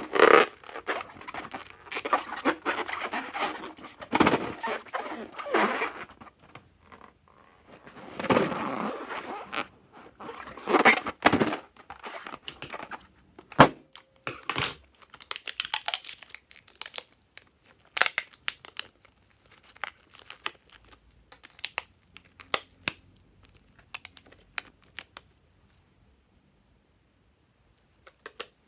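A rubber balloon being torn open, then fluffy foam slime squished and kneaded by hand. Dense crinkly crackling for about the first half thins to scattered sticky clicks and pops later on.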